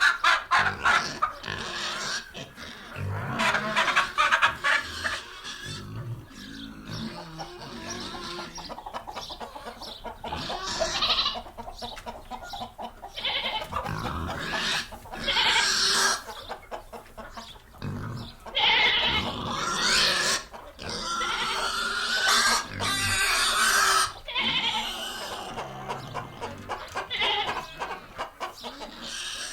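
Pigs calling: short rapid grunts at first, then a series of longer, higher squealing calls, each about a second long.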